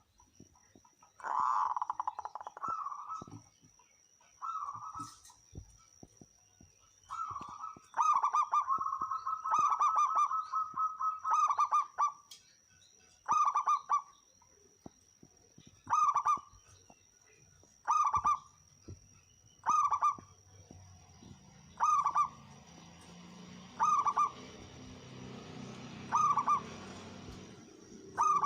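Zebra dove (perkutut) singing loudly: long rolling cooing phrases in the first half, then short coos repeated about every two seconds. A faint low hum joins in the second half.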